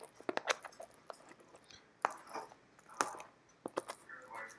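Packaging being handled and opened by hand: irregular sharp clicks, taps and short crackly scrapes of cardboard and plastic.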